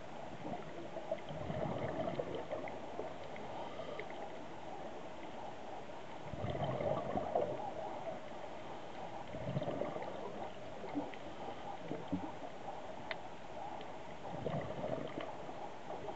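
Scuba diver's regulator exhalations underwater: a bubbling gurgle every three to five seconds, over a steady hiss with scattered faint clicks.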